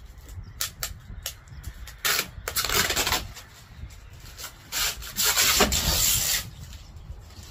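Plastic wrapping being ripped and pulled off a rolled rug: a few short crackles, then two long rough tearing rustles.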